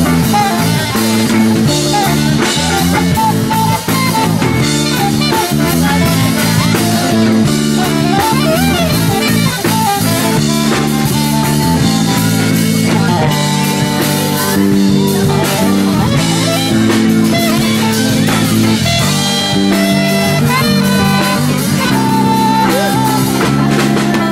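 Live band playing an instrumental passage, with guitar and drum kit keeping a steady beat.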